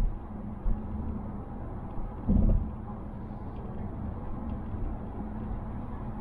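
Cabin noise of a 2020 Mazda Atenza 2.5L at expressway speed: a steady rumble of tyres and road. A few short, low thumps come through as the body jolts over bumps, the loudest about two seconds in. Jolts like these are what the owner says set off noises inside the cabin.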